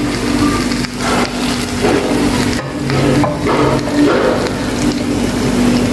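A utensil scraping and knocking against a pan as pan-cooked BBQ chicken pieces are lifted out onto a plate, with scattered short knocks over a steady low hum.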